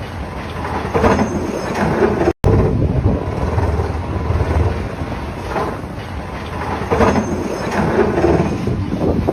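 Heavy drilling machine running with a low, steady rumble and irregular knocks, broken by a brief dropout about two and a half seconds in.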